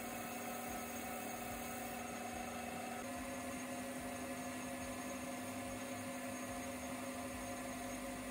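Small metalworking lathe running at a steady speed: a constant motor hum and whine with several steady tones, which shift slightly about three seconds in.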